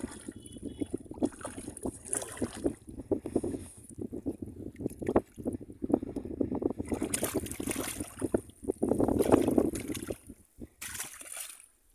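Shallow water sloshing and splashing, irregular, as hands grope in the muddy water inside a bamboo cone fish trap to catch a trapped fish; loudest about nine seconds in, dying down near the end.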